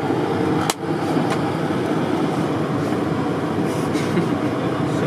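Steady rushing background noise on the flight deck of a parked Boeing 757, with one sharp click just under a second in and a few faint clicks after it.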